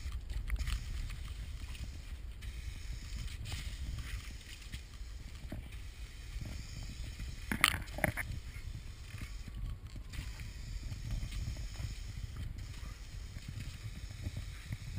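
Muffled, steady low rumble of outdoor noise and water spray heard through a GoPro's sealed waterproof housing, with two sharp knocks a little past the middle.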